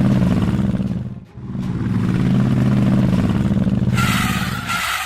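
A vehicle engine sound running up loudly in two long swells, with a short dip about a second in. Near the end the engine drops away and a hiss with a high squeal takes over.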